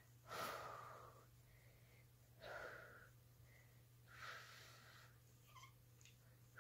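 A woman breathing audibly: three slow breaths about two seconds apart, the first the loudest.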